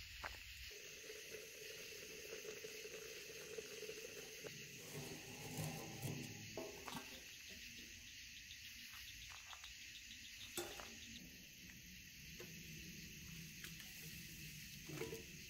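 A steady chorus of night insects such as crickets, with a few light clicks and knocks scattered through it, the sharpest about ten seconds in and near the end.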